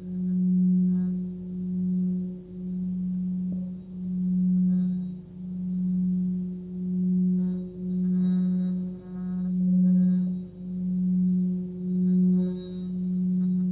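A 19.7 cm Nepalese singing bowl tuned to about 181 Hz (F#) sings a steady unbroken low tone as a felt-covered mallet is rubbed around its rim. The tone swells and fades about once a second, with faint scratchy friction from the mallet.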